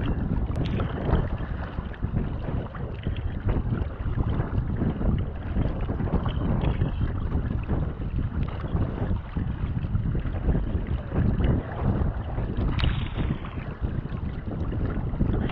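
Wind buffeting the microphone over water splashing and slapping around a sea kayak as it is paddled through choppy sea, with the paddle blades dipping in and out.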